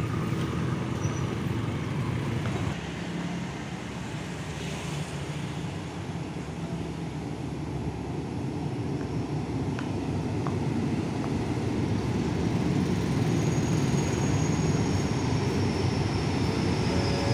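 Diesel locomotive running slowly into a station, its engine rumble growing steadily louder as it approaches. A faint high squeal rises over it near the end.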